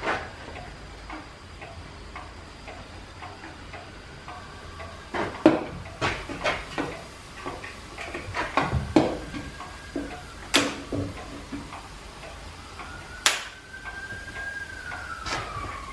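Irregular sharp metallic knocks and clicks, a few seconds apart, with a faint whine that comes in about halfway, rises slowly in pitch, then falls away near the end.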